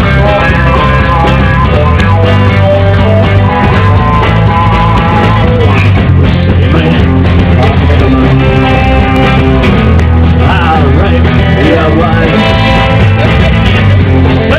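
Music soundtrack: a rock-and-roll song with guitar and a steady beat, with a singing voice in parts.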